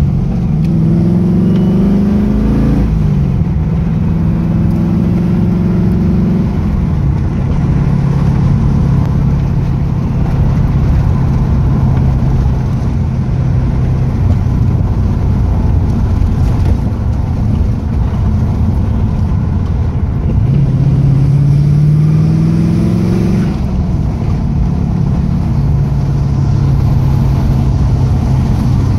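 Chevrolet Camaro's LS1 V8 engine heard from inside the cabin: it pulls up through the revs and shifts up in the first few seconds, then cruises at a steady note with road rumble. It climbs in pitch again for a few seconds about two-thirds of the way through and drops back as it shifts up.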